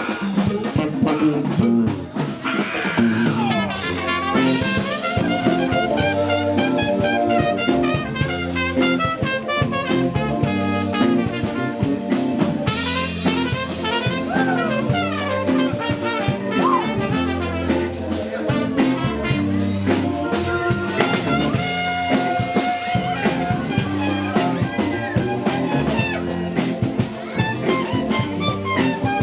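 Live band playing an instrumental passage of the song, a busy melodic line moving over a steady rhythmic low end, with a brief sung phrase near the start.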